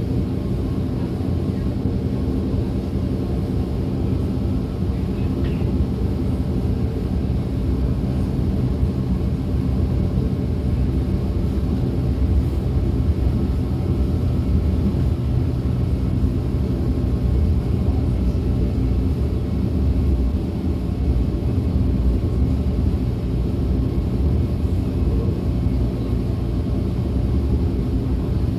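DB class 425 electric multiple unit running steadily along the line, heard on board: a constant low rumble of wheels and running gear with a steady hum.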